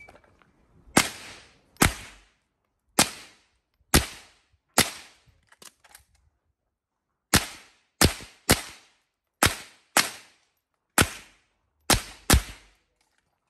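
.22 rimfire semi-automatic rifle fired in quick strings, about thirteen shots. There are four or five well spaced shots, a gap of about two seconds with a few faint ticks, then a faster run of eight shots, some in close pairs. Each crack trails off in a short echo.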